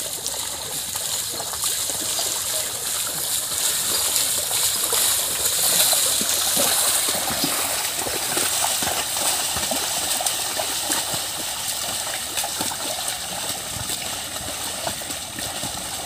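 Water and wet mud sloshing and splashing steadily as a pair of bullocks drag a wooden leveling board through a flooded paddy field, puddling it.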